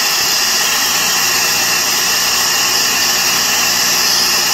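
Brazing torch flame hissing steadily on a compressor's discharge line, melting the solder plug, with the refrigerator compressor running underneath to push the melted solder out with its discharge pressure.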